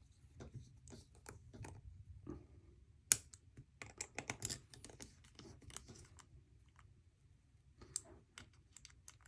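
Irregular small metal clicks and ticks as a precision screwdriver turns and seats the handle screws on a Zero Tolerance ZT0562 folding knife. The sharpest click comes about three seconds in, and a quick run of ticks follows a second later.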